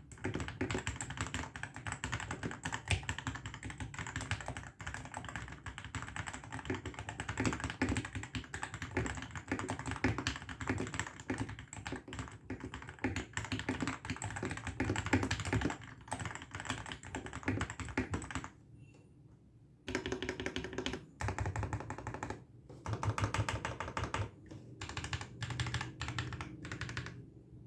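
Typing on an RK84 mechanical keyboard with lubed RK red linear switches, tape-modded and polyfill-filled, set on a bare wooden table: a fast, continuous run of keystrokes, a brief stop about two-thirds through, then shorter bursts of keypresses with small gaps between them.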